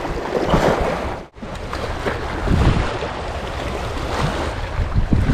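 Wind buffeting the microphone over the wash of sea waves, with a brief dropout about a second in.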